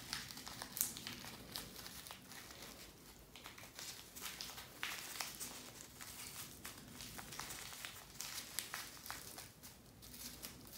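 A small paper packet filled with herbs being folded up by hand: faint, irregular crinkling and crackling of paper.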